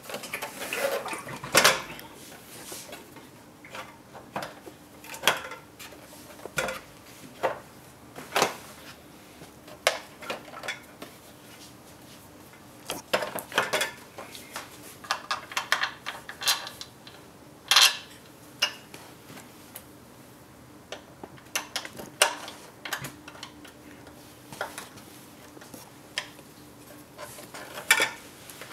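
Orpat 9F oil-filled heater's front cover and fins being fitted together by hand: irregular clicks, taps and knocks of plastic against metal, with a few louder clacks, one about two seconds in and one about midway.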